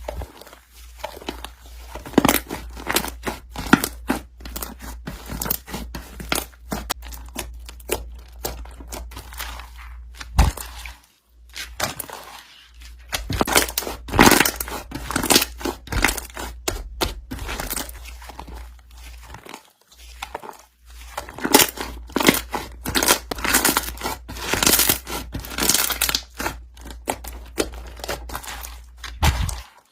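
Slime being squished, pressed and stretched by hand, making dense crackling and popping, with short pauses about a third and two thirds of the way through.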